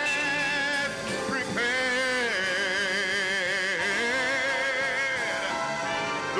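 Gospel song: a singer holding long, wavering notes with vibrato over music.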